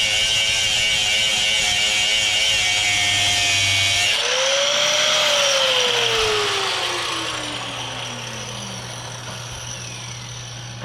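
A 4.5-inch angle grinder with a cut-off disc cutting through a rusted sway bar link, its whine wavering under load. About four seconds in it comes off the cut, the pitch rises briefly, then falls steadily as the disc spins down over about five seconds.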